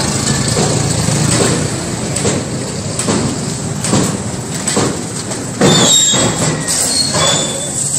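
Steel sheets rattling and clanking on a handcart as it is pushed and rolled over a rough floor. A louder metallic clatter starts suddenly about five and a half seconds in, followed by brief high scraping squeaks.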